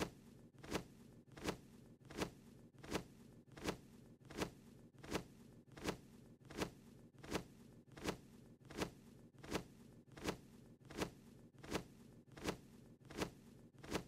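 Cartoon wing-flap sound effect of a small bird, a short swish repeating evenly about every three-quarters of a second over a faint steady hum.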